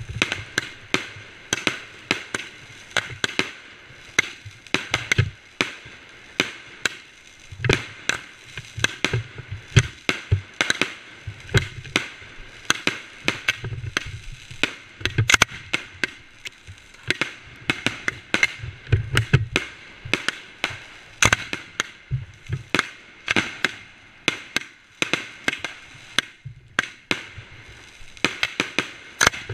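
Fireworks going off: a dense, irregular run of sharp cracks and bangs, several a second, some with a deeper thump.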